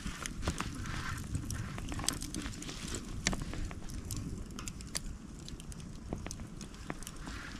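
Bonfire of cut bamboo and brush crackling, with frequent sharp pops and snaps over a low steady rumble.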